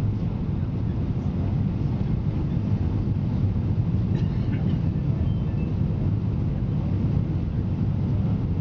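Steady low rumble of a Boeing 777-200's engines and airflow heard inside the economy cabin as the airliner descends at low altitude.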